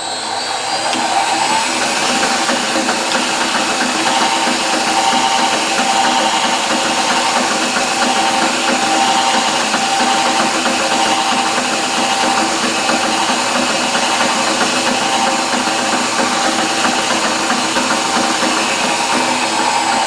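Bench drill press running at its top spindle speed with a magnet demagnetizer tool spinning in the chuck, a steady motor whine. It runs up to speed in the first second or two and starts to wind down right at the end.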